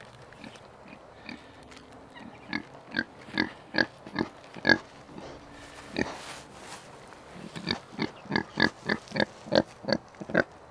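Pig grunting in runs of short grunts, about three a second, with a pause around the middle.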